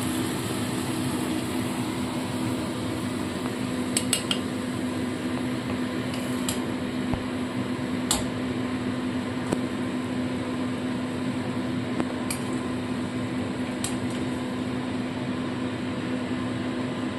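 A few scattered sharp clinks and taps of a metal spatula against a wok and a glass serving plate as cooked food is dished out, over a steady low hum.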